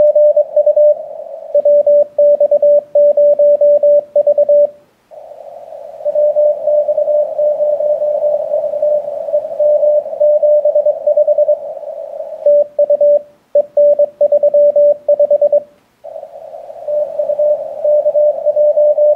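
Morse code (CW) from a 6-meter amateur radio transceiver: a tone of about 600 Hz keyed in quick dots and dashes, exchanged during a contest. Some stretches of the keyed tone sit in receiver hiss, and there are brief breaks about five and sixteen seconds in.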